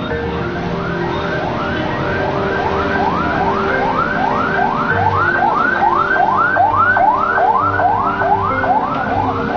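Background music with a fast, repeating, siren-like rising whoop, about three a second, over held notes.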